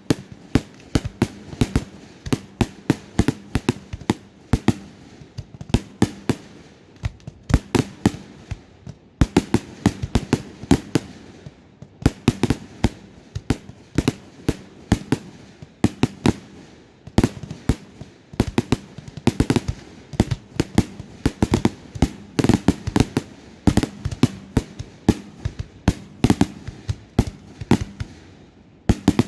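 Fireworks display: a rapid, continuous barrage of sharp bangs and cracks, several a second, with brief lulls between volleys.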